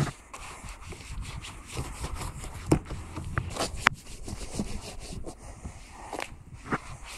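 Microfibre wash mitt scrubbing over a foam-covered side-by-side's plastic bodywork and knobbly tyre, in irregular rubbing strokes with a couple of sharp clicks.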